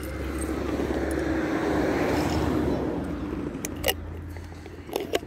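A motor vehicle passing by, its noise swelling to a peak about two seconds in and then fading, over a steady low hum. A few sharp clicks follow near the end.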